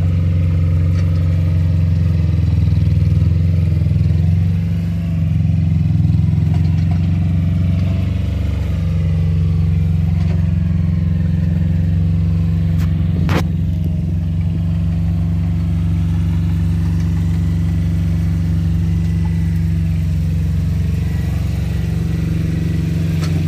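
Yanmar ViO40-2 mini excavator's diesel engine running at a steady idle, with a single sharp click about halfway through.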